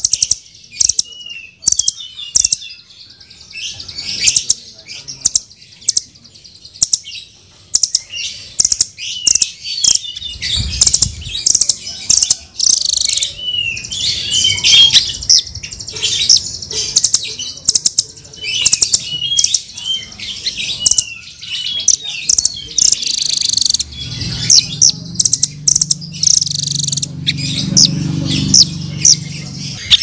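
Blue nuthatch calling: a rapid, irregular string of sharp high chips and short rising-and-falling chirps. From about three-quarters of the way through, a low rumble runs underneath.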